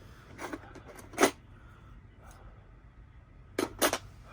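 A few small clicks and knocks of lock hardware and tools being handled: one about half a second in, a sharper one just after a second, and two close together near the end.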